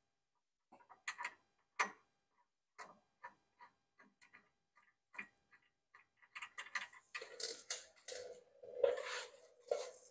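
Metal clicks and ticks of hand tools and bolts on the front brake caliper abutment bracket as it is bolted to the hub, sparse at first and becoming a denser run of clicking about seven seconds in.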